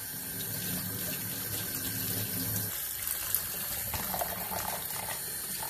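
Kitchen tap running steadily onto pieces of lamb liver in a plastic colander, the water splashing through into a stainless steel sink.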